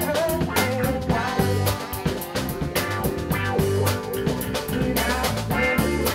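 Live band playing a cover: drum kit keeping a steady beat under electric bass, electric guitar and saxophone.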